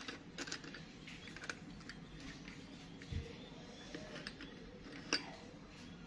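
Light clicks and clinks of old metal bicycle bells knocking against one another as they are handled in a ceramic bowl, sharpest right at the start and about five seconds in, with a soft low thump near three seconds.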